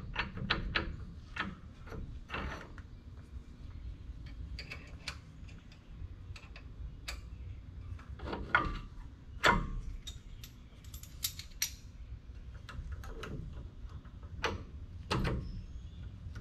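Irregular metallic clicks and clinks of heavy-truck disc brake pads, caliper and retainer plate being handled and seated against each other, a few louder knocks among them, over a low steady rumble.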